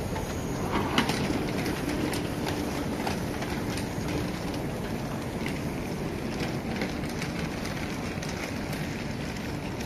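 Steady rumbling ambience of an underground railway station concourse, with scattered clicks and knocks from footsteps and wheeled suitcases rolling over the tiled floor, including a louder knock about a second in.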